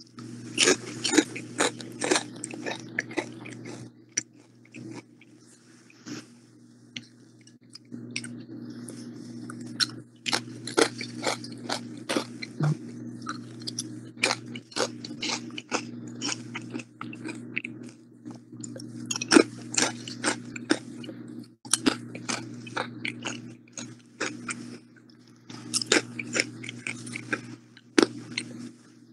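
A person chewing and crunching jalapeño chips close to the microphone, in bouts of rapid crunches with short pauses between them, over a low hum.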